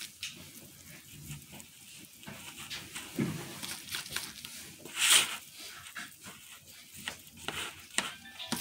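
Food-preparation handling sounds: scattered light clicks and rustles of gloved hands working with bowls and food, with one louder short rustle about five seconds in.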